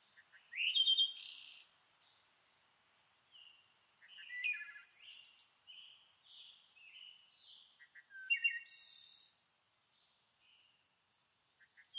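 Small birds singing: several phrases of high chirps and trills with short pauses between them.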